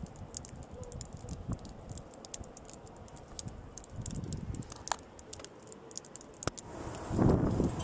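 Blizzard wind buffeting the microphone in gusts, strongest near the end, with scattered light irregular ticking throughout.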